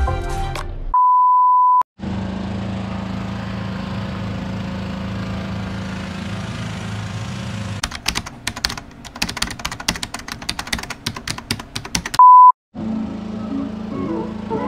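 Edited-in electronic beep tone: a steady beep of one pitch lasting about a second near the start, and a second short, louder beep near the end. Between the beeps runs a steady hum that gives way to a rapid run of clicks.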